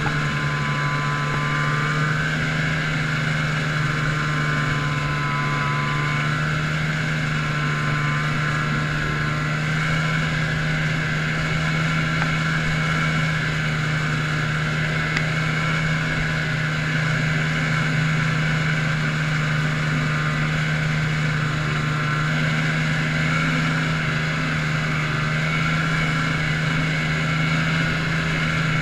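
A 1980 Arctic Cat Panther 440's fan-cooled two-stroke engine running at a steady cruising pitch, heard from the seat while riding. It is a constant drone throughout.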